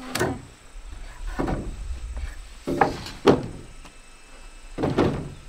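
Timber beams knocking against a wooden house frame as they are handled and set in place: several separate, irregular wooden knocks and thuds, the loudest a little past halfway.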